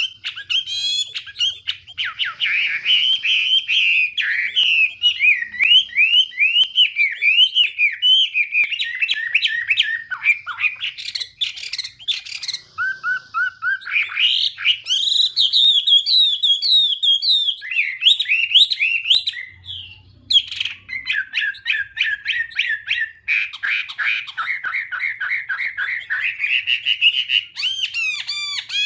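Chinese hwamei singing: a long, fast run of varied whistled and warbled notes, broken twice by short pauses.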